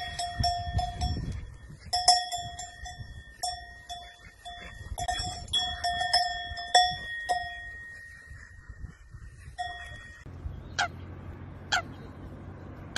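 A cow's neck bell clanking irregularly as the cow walks, each stroke ringing on a clear tone; it stops about ten seconds in. Two short, sharp bird calls follow near the end.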